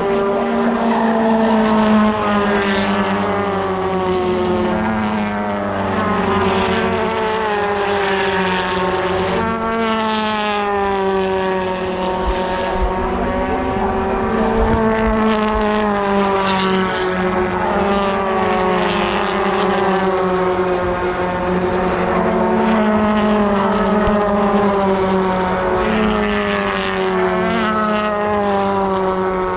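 British Touring Car Championship race car engine at full racing speed, its note climbing in pitch through each gear and dropping back at the shifts, again and again.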